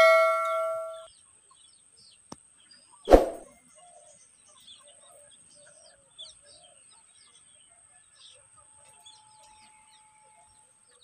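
A bell-like ding fades out over the first second, a single sharp thump comes about three seconds in, and faint bird chirps follow.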